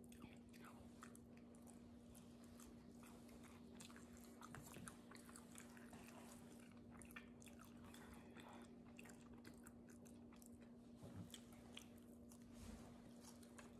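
Faint chewing and biting of homemade roti flatbread, with scattered small crunching clicks, over a steady low hum.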